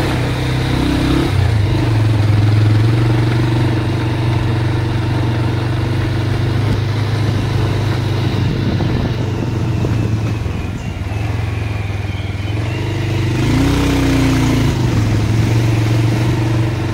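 Motorcycle engine running steadily while riding along, its note easing off and then dipping and rising again about two-thirds of the way through.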